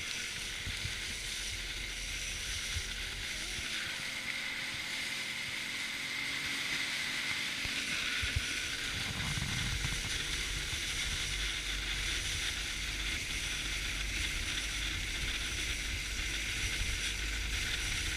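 Inflatable boat under way across choppy sea: a steady rush of wind and water with a low rumble, growing somewhat stronger about halfway through.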